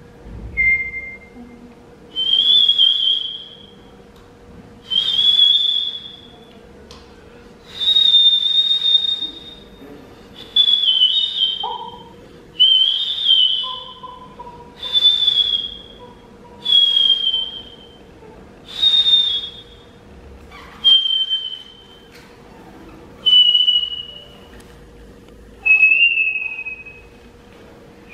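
Two performers of improvised sound poetry whistling through pursed lips: a string of short, high, breathy whistled notes, one every two seconds or so, sliding slightly lower towards the end. A lower whistled note joins briefly around the middle.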